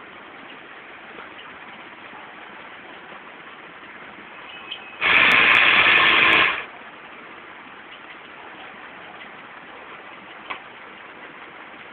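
Pneumatic gripper robot working on compressed air: a faint click, then a loud hiss of air lasting about a second and a half that cuts off abruptly, as the valve switches and the air cylinder moves. Another faint click comes near the end, over a steady low hiss.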